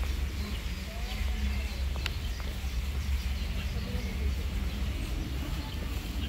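Outdoor garden ambience: a steady low rumble on the microphone, with faint bird chirps and distant voices of people talking. A single sharp tick about two seconds in.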